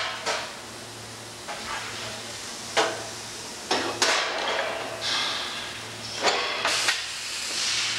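Sheet metal clanking and knocking on a Pedrick rotary compression bending machine as a truck fender is clamped and bent: several sharp knocks with short bursts of hissing after some of them, over a low machine hum.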